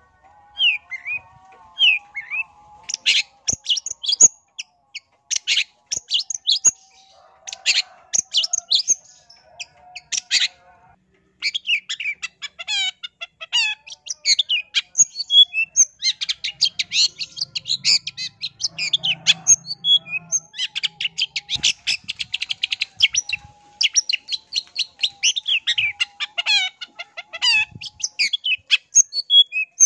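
Long-tailed shrike singing: a fast, rambling run of high, scratchy chattering notes. It is broken by a brief pause about ten seconds in, and after that it is almost continuous.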